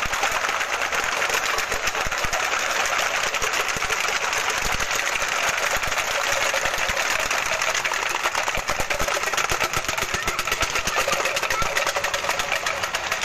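Many handheld wooden clappers and rattles (pataraka) clacking rapidly and without pause, the strokes of many players running together into one dense, steady clatter.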